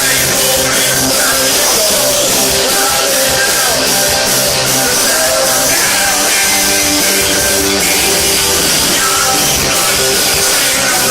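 A punk rock band playing live and loud, with electric guitars over a steady driving drum beat.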